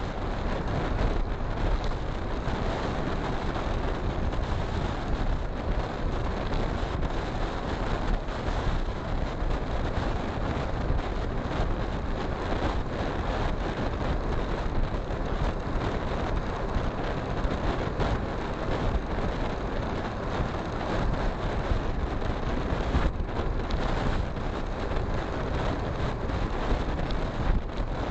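Steady wind rush on the microphone of a camera on a moving motorcycle, with road and engine noise beneath it.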